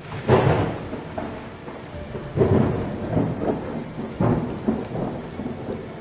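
Thunder rolling over steady rain, with three loud rolls coming a second or two apart and a sharp crack just after the last.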